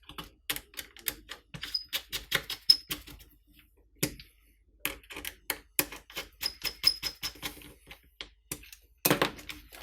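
Rapid runs of small sharp clicks as the screws holding the plastic side shell of a paintball magazine are driven in and tightened with a hand tool, stopping and starting between screws.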